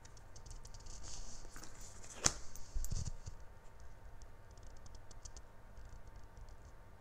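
Quiet room with faint handling noises: scattered light ticks and one sharper click about two seconds in, followed by a soft thump.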